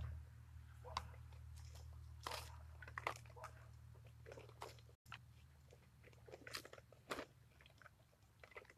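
Faint crinkling and rustling of a plastic bag and supplies being rummaged through by hand: short, irregular crackles over a low steady hum.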